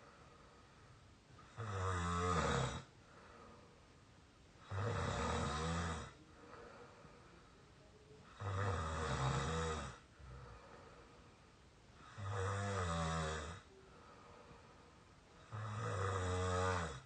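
An exhausted young adult, out cold, snoring with a squeaky snore: five snores about every three and a half seconds. Each snore lasts over a second and wavers in pitch.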